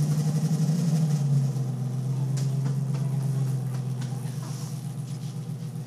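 Dodge Challenger SRT Demon's supercharged 6.2-litre HEMI V8 idling just after start-up, a steady low note that slowly eases and grows a little quieter as the start-up flare dies down.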